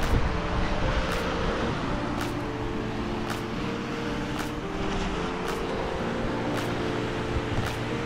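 Background music: held notes that change every second or two over a light, even beat about once a second, with a low wind rumble on the microphone at the start.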